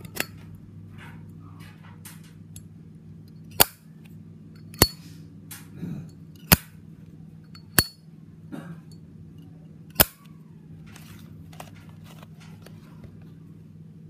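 Zippo Tribal Spider windproof lighter's hinged metal lid being flipped open and snapped shut by hand: about six sharp metallic clicks a second or two apart, with softer clicks and handling noise between them, over a low steady hum.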